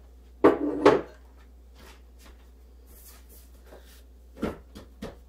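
Two sharp knocks about half a second apart, from something set down hard or shut at the kitchen counter, then two softer thumps near the end.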